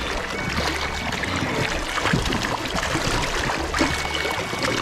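Mountain stream water rushing over a shallow rocky bed, with irregular splashing and sloshing.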